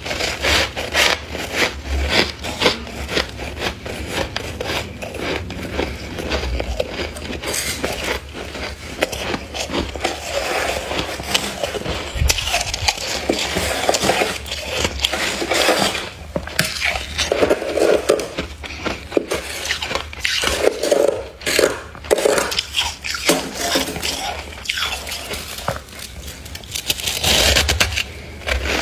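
Thick freezer frost being scraped and broken loose with a plastic ice scraper: a dense, continuous run of short crunching scrapes and crackles.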